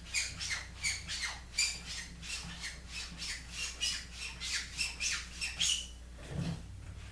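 Edward Barnes & Sons 6/8 near-wedge straight razor being stropped, the blade swished back and forth along the strop in quick, regular passes about three a second. The strokes stop about six seconds in, followed by a low thump.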